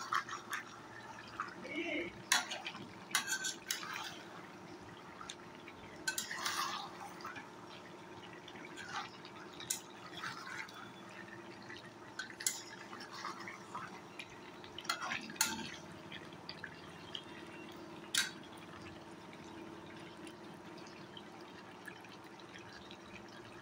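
Metal spatula scraping and clicking against a steel pan as thick beef and potato curry is stirred, the clicks scattered and irregular, with a faint steady hum underneath.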